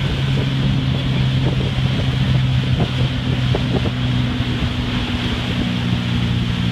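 Motorboat engine running steadily at towing speed, with wind buffeting the microphone.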